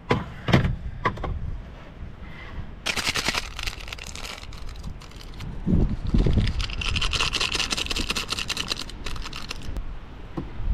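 Crinkly foil ramen seasoning sachets being handled and torn open over a pot, with crackling and rustling about three seconds in and a longer stretch from about six seconds in as the sachet is squeezed out.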